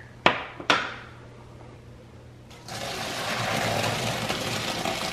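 Hot pasta water and cooked elbow macaroni poured from a pot into a stainless-steel colander in a sink: a steady rush of splashing water that starts about two and a half seconds in, after two short knocks in the first second.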